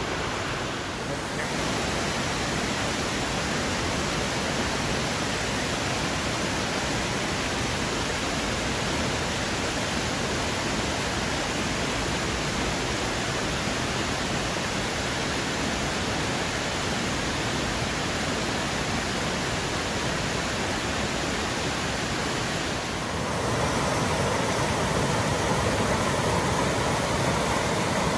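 Waterfall running high, a steady rushing of water. About 23 s in it gives way to a louder, brighter rush of a creek tumbling over rocks.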